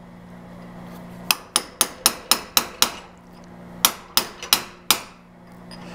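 Hammer striking a hot chisel to finish cutting through hot steel clamped in a bench vise, splitting off a piece. The blows come in a quick run of about seven, roughly four a second, then a short pause and four more.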